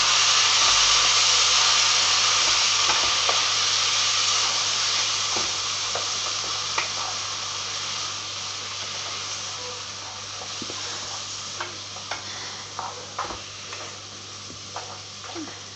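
Tomato puree sizzling in a hot pan as it is stirred in. The sizzle fades steadily, and short clicks of the utensil against the pan stand out more toward the end.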